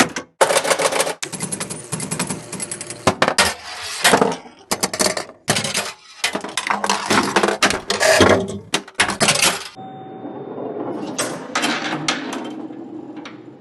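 Pinball machine in play: a dense, irregular clatter of sharp mechanical clicks and knocks from the flippers, bumpers and the ball striking parts of the playfield. About ten seconds in, it gives way to a quieter, steadier rolling rumble with a faint held tone and a few scattered clicks.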